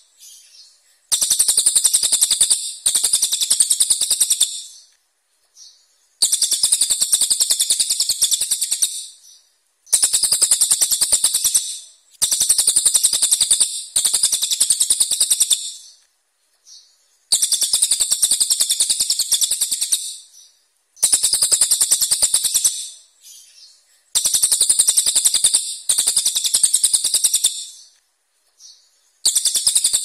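Caged brown cililin songbird calling in loud, harsh bursts of very rapid rattling notes, each burst a few seconds long with short pauses between, about eight bursts in all.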